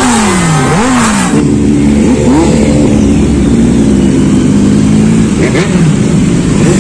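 Motorcycle engines revved again and again, each blip dying away in pitch, about one every three-quarters of a second. After a sudden change about a second in, a group of sport motorcycles ride past at steady speed, with the odd rise and fall in engine pitch as riders work the throttle.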